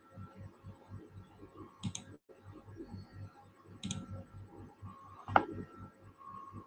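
Three computer mouse clicks about two seconds apart, the third, about five seconds in, the loudest, over a faint steady hum.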